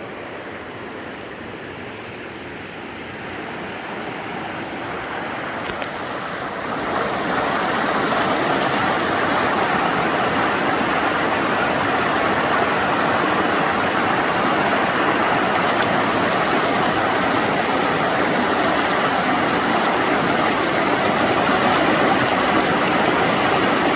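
Rushing whitewater of a mountain river running over rocks: a steady, even roar that swells over the first several seconds, then holds steady.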